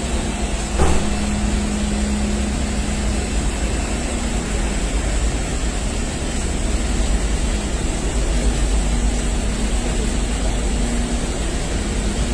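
Steady low rumble of engine or traffic noise with a faint hum that fades in and out, and a single knock about a second in.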